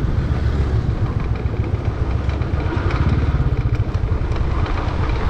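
Motorcycle engine running steadily under way, a loud, even low rumble with rapid pulsing.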